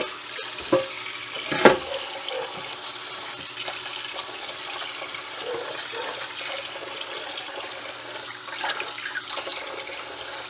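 Tap water running and splashing into an electric multicooker's non-stick bowl as it is rinsed and rubbed by hand, with two sharp knocks in the first two seconds.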